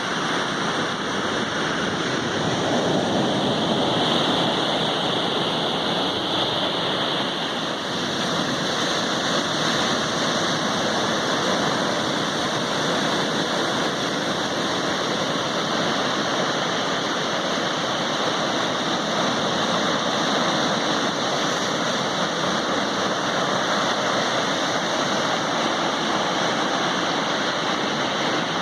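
Sea waves breaking, heard as a steady, unbroken rush of surf that swells slightly a few seconds in.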